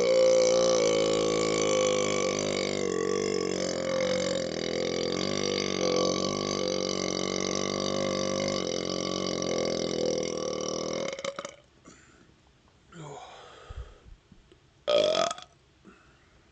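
One very long, steady burp from a man who has chugged a carbonated root beer; it is already under way and stops abruptly about eleven seconds in. A few quieter sounds follow, with one brief loud sound near the end.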